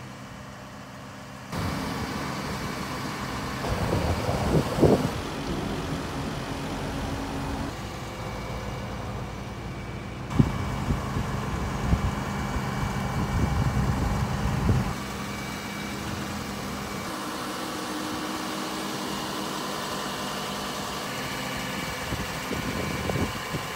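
Doosan DX160W wheeled excavator's diesel engine running steadily as it lifts and carries a long steel windmill stock, with a few sharp knocks along the way.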